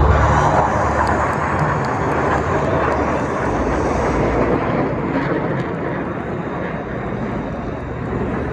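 Jet aircraft of an aerobatic display team passing overhead: a broad rushing jet-engine noise that slowly fades. A music track cuts out in the first half second.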